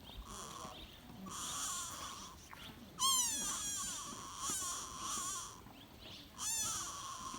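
Sika deer fawn bleating over and over: about five thin, high calls with short gaps between them. The loudest comes about three seconds in and sweeps down in pitch, and another sweeping call comes near the end.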